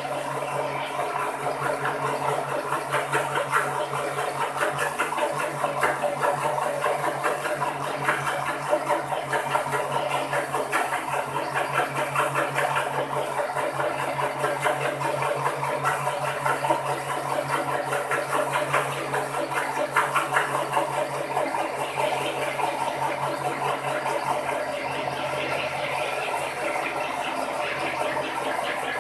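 Countertop electric blender running steadily, its blade whipping whole-egg mixture while oil is drizzled in a little at a time to emulsify it into mayonnaise.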